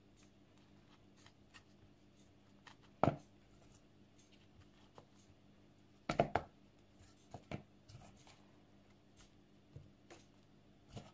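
Faint, scattered taps and clicks of apple slices being set by hand into a metal cake pan, with the loudest knock about three seconds in and a quick double knock about six seconds in.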